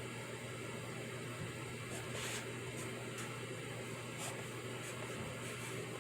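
Pencil writing on paper: short, scratchy strokes at irregular intervals, strongest a little after two seconds in, over a steady low hum and background hiss.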